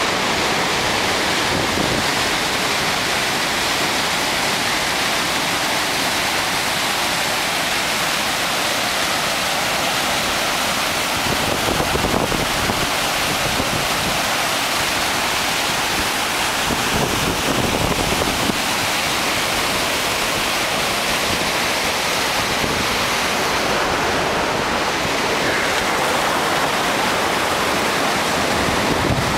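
A river in flood, its muddy water rushing over a concrete diversion weir and churning through rapids: a steady, loud rush of water. Wind buffets the microphone now and then.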